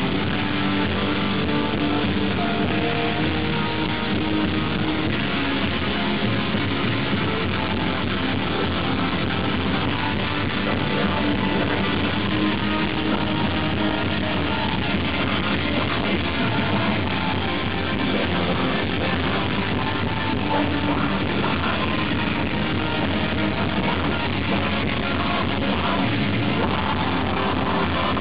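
Live rock band playing at full volume, with electric guitars to the fore. The sound is a steady, dense wall with no breaks.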